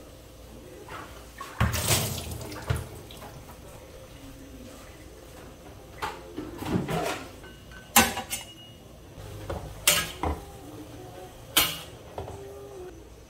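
Metal spatula clanking and scraping against an iron wok as cassava leaves are turned in it over a gas flame, several sharp clanks with quieter wet rustling between.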